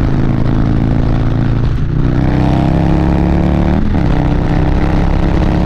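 Harley-Davidson Street Bob's Milwaukee-Eight 114 V-twin with a stage 2 cam upgrade, pulling hard under acceleration. It shifts up twice, about two seconds in and near four seconds: the engine note drops at each shift and then climbs again.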